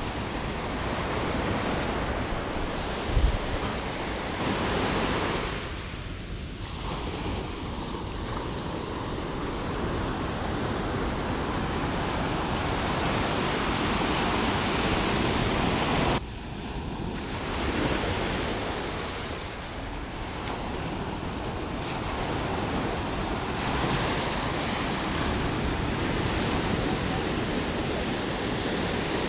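Ocean surf breaking and washing up the beach, a steady rush that swells and eases, with wind buffeting the microphone. A short knock about three seconds in.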